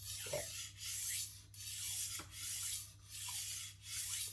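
Steel knife edge being stroked across a wet diamond sharpening plate: five scraping, hissing strokes, about one a second. The pressure is very light, little more than the knife's own weight, as the burr is being worked on the edge.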